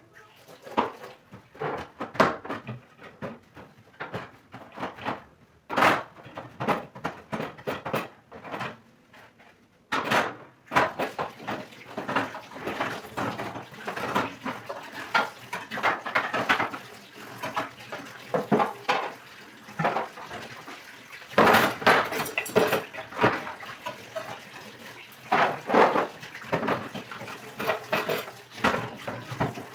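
Dishes and cutlery clattering as they are handled, a run of knocks and clinks with a louder burst of clatter about two-thirds of the way through.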